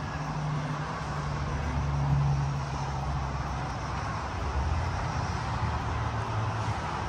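Steady low drone of distant engines with a faint even hiss, with no single sound standing out.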